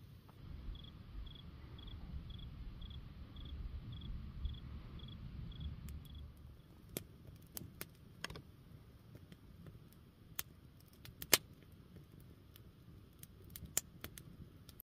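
An insect chirping at a steady rate of about two chirps a second over a low rumble, then, from about six seconds in, a wood fire crackling with scattered sharp pops, the loudest a little after eleven seconds.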